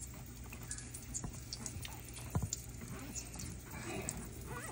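Vegetable oil poured from a bottle into an empty metal pot, a soft trickle toward the end, with scattered light clicks and a small knock about halfway through.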